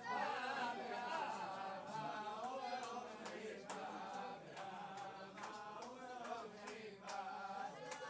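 A crowd of men singing together unaccompanied in a slow, chant-like melody, with a few sharp clicks scattered through it.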